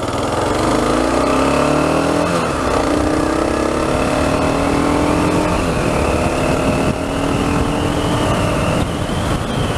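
Kawasaki KLR650's single-cylinder engine accelerating up through the gears: its pitch climbs, drops back twice at shifts and climbs again, with a steady rush of wind noise.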